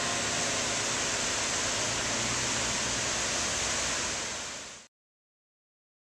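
Waterfall rushing steadily beside the Chimes Tower, with the last notes of the carillon bells dying away in the first half second. The water sound fades and cuts off about five seconds in.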